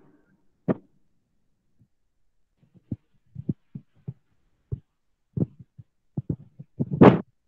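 A series of short, dull knocks at irregular intervals, with a louder rustling burst near the end.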